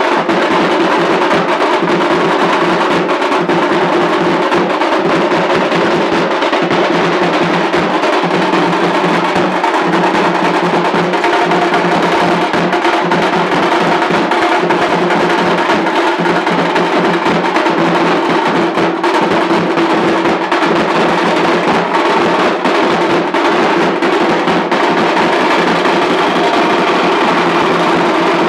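Music with fast, continuous drumming over steady held tones.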